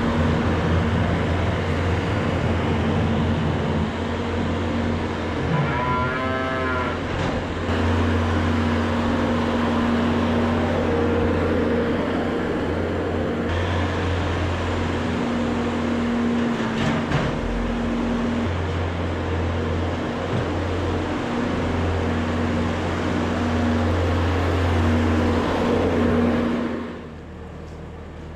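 A machine's engine runs steadily throughout. One heifer moos once, briefly, about six seconds in. The engine sound drops away sharply near the end.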